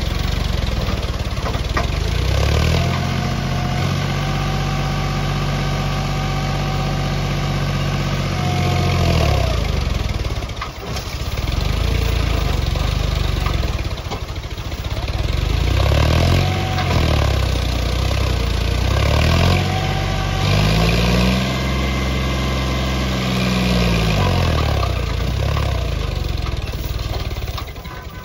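Diesel tractor engine revving up and holding high revs for several seconds before dropping back, twice, with quicker rev rises and falls in between.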